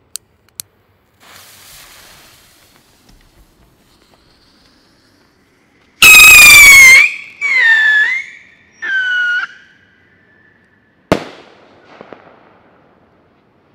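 Two lighter clicks and a short fuse hiss, then a Funke three-stage whistling rocket (Triller-Rakete) launches: three separate whistles of about a second each, each falling in pitch and lower than the one before, the first the loudest. About two seconds later the rocket bursts with a sharp bang, followed by faint crackle.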